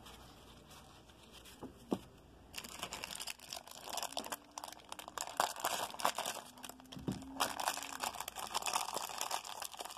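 Clear plastic wrapper of a 1988 Fleer baseball card rack pack crinkling as it is handled and torn open. The crinkling starts about two and a half seconds in, after a couple of soft taps.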